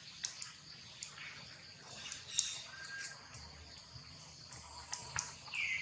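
Outdoor ambience: a steady high insect drone with scattered light clicks, a brief thin tone about three seconds in, and a short high call near the end.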